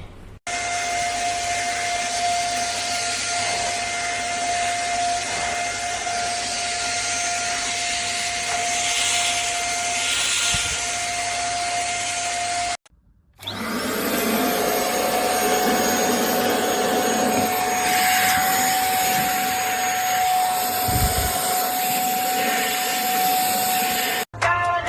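Simplus lightweight vacuum cleaner running, a steady high motor whine over rushing airflow hiss. It stops abruptly about halfway through, then starts again with the motor spinning up before settling into the same steady whine.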